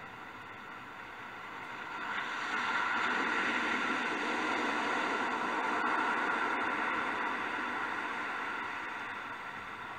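Ocean surf: a wave washes in, swelling over a second or two, holding, then slowly drawing back.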